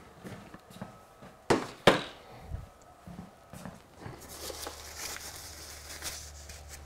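Objects being handled and set down on a tabletop: scattered light knocks with two sharp knocks about one and a half and two seconds in. From about four seconds in there is a soft rustle over a low steady hum.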